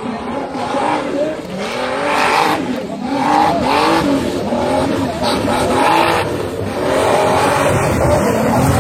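Race car engine revving up and down again and again as it is driven hard through a timed course, with tyres squealing at several points.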